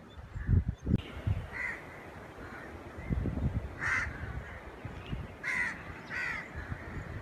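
Crows cawing, four separate caws a second or more apart, over low rumbling gusts of wind on the microphone.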